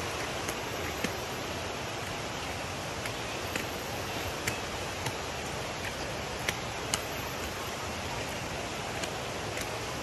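Steady rush of flowing water, heard as an even hiss. Sharp footsteps on concrete steps stand out over it, often in pairs.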